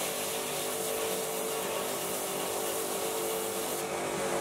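A piece of steel held on a welding magnet being flat-ground against a running grinder: a steady grinding hiss over the machine's motor hum. The grinding stops near the end, leaving the motor running.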